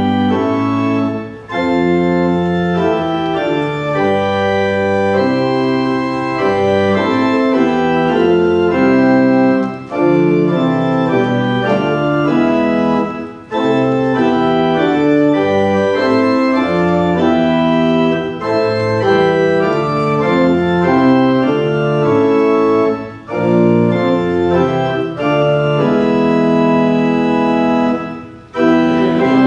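Church organ playing a hymn tune in sustained chords, with short breaks between phrases: the introduction before the congregation sings.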